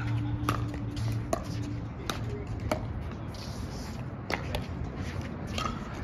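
Pickleball paddles striking a plastic pickleball in a rally, a series of short sharp pops about seven times, half a second to a second and a half apart.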